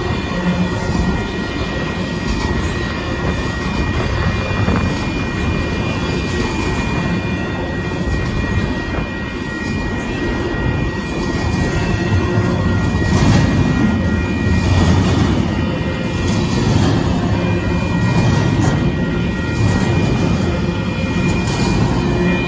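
Double-stack intermodal freight cars rolling past a grade crossing: a steady rumble of steel wheels on the rails with a thin steady high tone over it, growing louder about halfway through.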